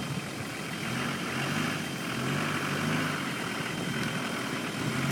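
Off-road 4x4 vehicle's engine running steadily at low revs.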